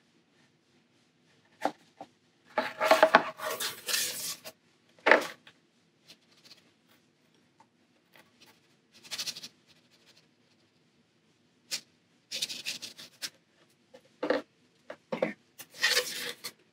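Short, irregular bursts of rubbing and scraping as a sheet of watercolour paper is slid and turned on the tabletop and a brush scrubs paint onto it. The longest bursts come a few seconds in and again near the end.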